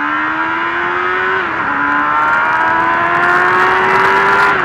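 Suzuki GSX-R 750 inline-four motorcycle engine accelerating hard, its pitch climbing, dipping at an upshift about a second and a half in, then climbing again until another shift at the very end. Wind noise on the helmet microphone grows with speed.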